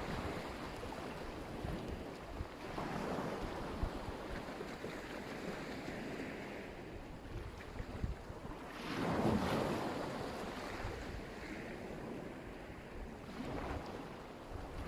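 Black Sea surf washing onto the shore, waves breaking and rushing in and out, with a larger wave breaking about nine seconds in. Wind buffets the microphone throughout.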